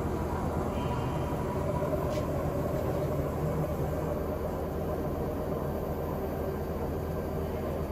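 Deckel FP 4A universal milling machine running with its spindle turning, no cut: a steady mechanical hum with a constant faint whine.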